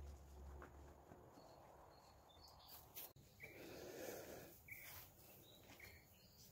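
Near silence of a garden, with three faint short chirps about a second apart in the second half and a soft rustle between them.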